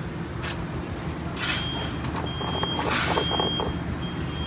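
A vehicle engine running steadily. A thin, high electronic beeping tone comes and goes from about a second and a half in, with a few short clicks.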